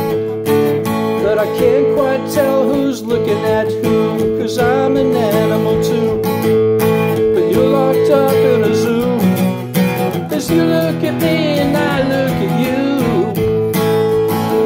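Epiphone acoustic guitar strummed in steady chords, with a man's voice singing over it through most of the stretch.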